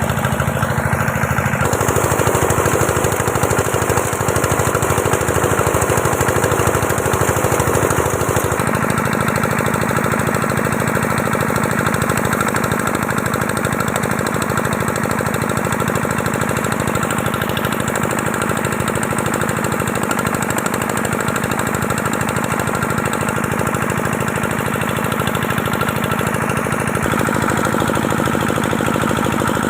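A small engine running steadily with a fast, rattling pulse, its tone shifting slightly about two seconds in and again about nine seconds in.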